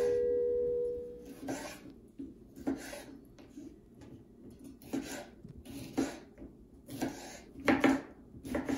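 Chef's knife slicing small sweet peppers on a bamboo cutting board: about a dozen separate cuts at an uneven pace, each ending in a tap of the blade on the wood.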